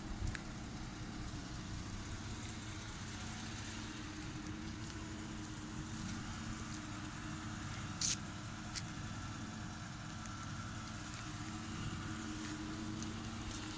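A 2014 Dodge Charger's engine idling steadily, a low even hum, with a single sharp click about eight seconds in.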